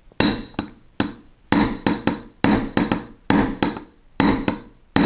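Small hammer striking a steel punch to drive a roll pin into a CZ P-07 pistol slide on a bench block: about a dozen sharp metallic taps, roughly two to three a second, heavier and lighter blows alternating, each with a short ring.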